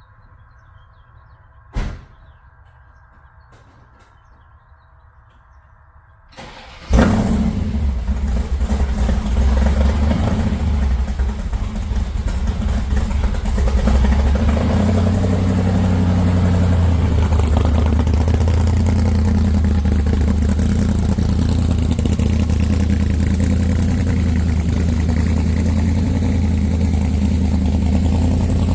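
A single clunk about two seconds in, then a hot rod's engine cranks briefly and fires up about seven seconds in and settles into a loud, steady idle.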